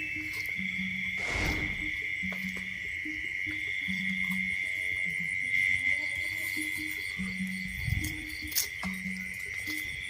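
Night insect chorus, a steady high-pitched trill, with short low calls repeating about once a second underneath and a couple of brief rustles.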